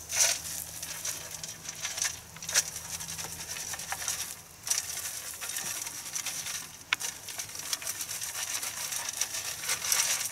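Peat moss being shaken through a metal trapper's sifter with a wire-mesh screen to bury a bedded trap: a steady hissing rustle of falling material, with a few sharp ticks.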